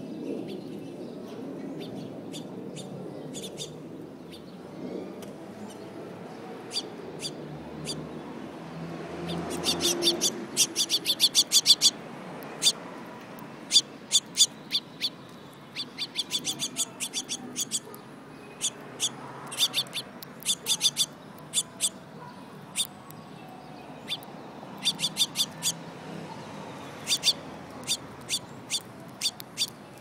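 Small finches chirping in quick runs of short, sharp high notes, the loudest run about ten seconds in.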